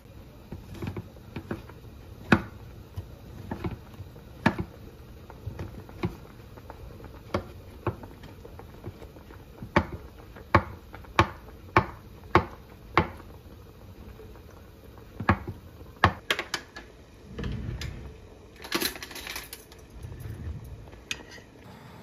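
Knife knocking on a wooden cutting board while slicing a block of tofu: sharp single taps, about one to two a second, coming closer together in the middle.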